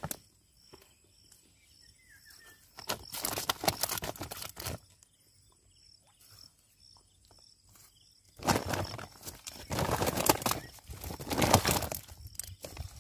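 Woven plastic sack holding freshly caught tilapia rustling and crinkling as it is handled. There is a short burst about three seconds in, then a longer, louder spell from about eight and a half seconds to near the end.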